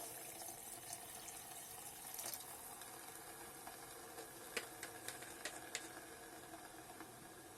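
Water just added to fried vegetable masala in an electric kettle, a faint watery hiss slowly fading away, with a few light clicks between about four and six seconds in.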